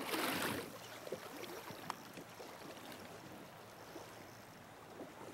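Faint steady rush of a shallow river flowing over stones, with scattered small ticks. A louder rush of noise in the first half second then fades.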